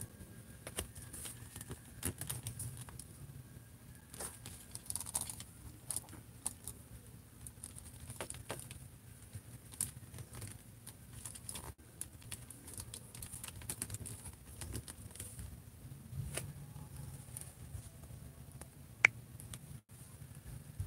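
Plastic action figure being handled and posed: scattered soft clicks and rubs of its joints and of hands on the plastic, with one sharper click near the end.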